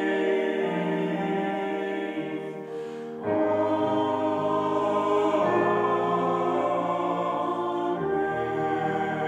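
Slow sacred choral music: sustained chords that change every couple of seconds, dipping in level briefly about three seconds in before swelling again.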